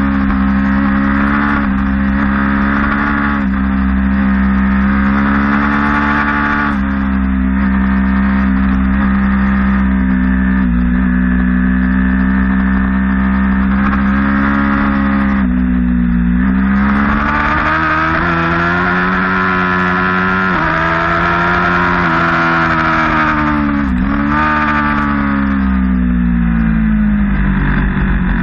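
Sport motorcycle engine running at high revs at speed on a track, heard from on board with wind rush underneath. The engine note rises and falls with the throttle, drops sharply about halfway through, climbs again, dips briefly near the end and then winds down.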